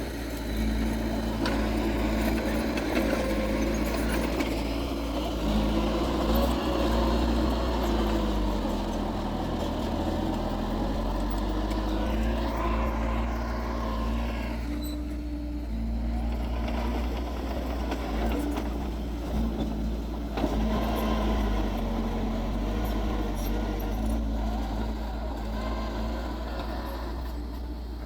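Heavy diesel earthmoving machinery running steadily, its engine pitch shifting up and down as it works under changing load.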